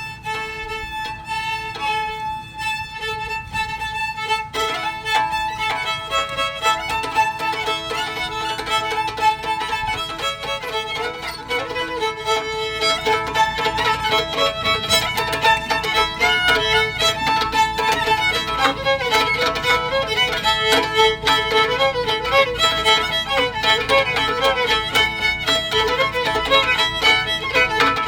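A fiddle tune is bowed while a second player beats on the strings with fiddlesticks, adding a fast clicking rhythm over the melody. The playing grows louder and busier about halfway through.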